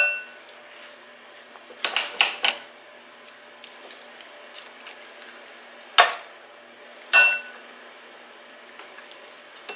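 Metal spoon scraping soft roasted squash flesh from its skin, with a few sharp clinks of the spoon against a glass bowl that rings briefly: one at the start, one about seven seconds in and one at the end. Between them come short scrapes, a cluster about two seconds in and one about six seconds in.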